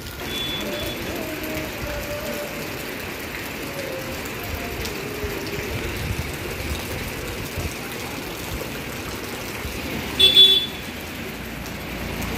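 Steady rain falling on wet concrete and puddles, with a brief high-pitched sound about ten seconds in.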